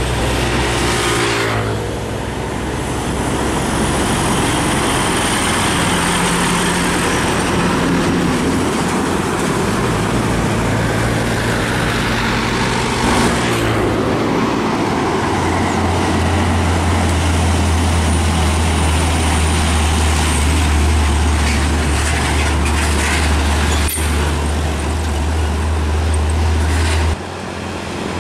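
Trucks and other traffic passing along a highway: truck engines running over steady tyre and road noise. A low engine drone is strongest through the second half and cuts off suddenly near the end.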